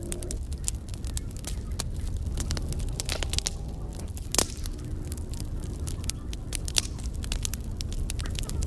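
Campfire burning, crackling with many sharp irregular pops and snaps over a steady low rumble.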